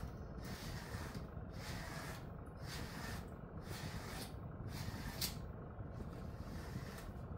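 Grooming brush swishing through a Jindo-mix dog's thick coat in repeated strokes, about one a second, with one short sharp tick a little over five seconds in.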